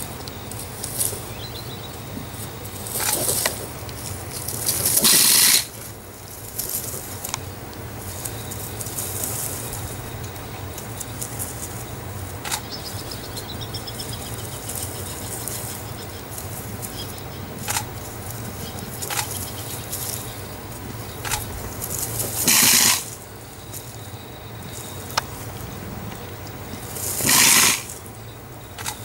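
A leopard tussling with a porcupine: four short, harsh, noisy bursts of about a second each and scattered clicks and rustles from the scuffle, over a steady low hum.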